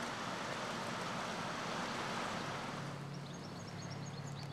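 Steady rush of river water from a passing cargo barge's wash. About three seconds in, the rush falls away, leaving a low engine drone, and a European goldfinch starts twittering in short high chirps.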